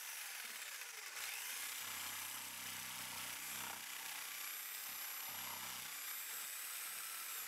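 Electric jigsaw cutting through a wooden block, trimming the edge of a hole-saw opening. It is a steady buzz with a thin high whine, dipping briefly about a second in.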